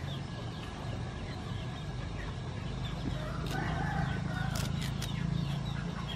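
Hens clucking faintly in the background over a steady low hum, with a few soft snaps and rustles as moringa leaves are stripped from their stems by hand.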